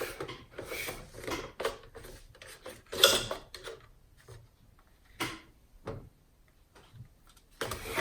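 Lexus IS220d centre dashboard fascia being worked loose and handled: scattered clicks and knocks of hard trim with some rubbing. The sharpest click comes about three seconds in and another just after five seconds.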